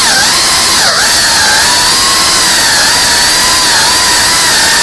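GEPRC Cinelog cinewhoop's brushless motors and ducted propellers whining loudly in flight. The pitch dips sharply twice in the first second as the motors slow and spin back up, then holds fairly steady.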